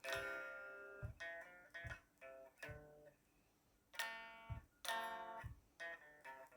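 Guitar chords strummed one at a time, each left to ring and fade, with a quicker run of strums near the end.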